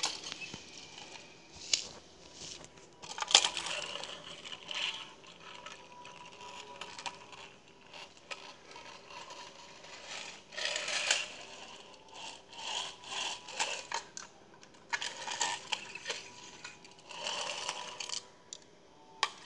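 Siku toy train being handled on a hard surface: irregular scrapes and rattles with a few sharp clicks.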